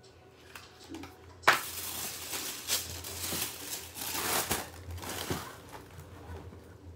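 Black tissue paper packaging wrapped around a shoebox being pulled back and handled, crinkling and rustling. It starts suddenly about a second and a half in, goes on in uneven bursts, and dies down near the end.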